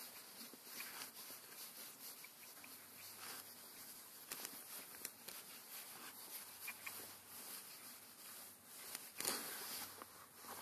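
Faint handling noises: scattered small clicks and brief rustles as metal transmission parts are turned over in the hands, with the loudest rustle about nine seconds in.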